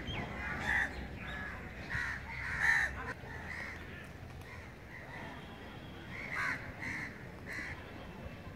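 Crows cawing repeatedly, a string of short harsh calls, some close together and some a second or more apart.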